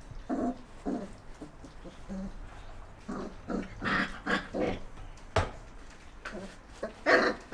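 Four-week-old German wirehaired pointer puppies making short, repeated vocal calls, with a louder cry near the end and a single sharp knock a little past halfway.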